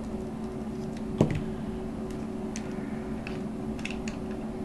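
Small scattered clicks of a stripping tool and the cable as about an inch of outer jacket is stripped off a Cat 5 network cable, with one sharper click about a second in.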